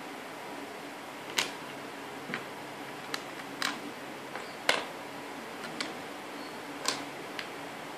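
LEGO Technic plastic pieces clicking and clattering as they are pulled from the puzzle frame and set down on a wooden tabletop: about ten sharp, irregular clicks, the loudest about one and a half, four and a half and seven seconds in.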